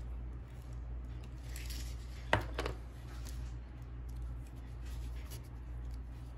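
Faint scraping and rubbing of nail-stamping tools on a metal stamping plate, with one sharp click about two and a half seconds in, over a steady low hum.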